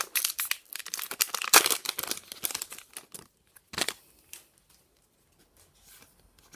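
Foil trading-card booster pack being torn open and crinkled: dense crackling for about three seconds, one sharp rustle near four seconds in, then it goes quiet.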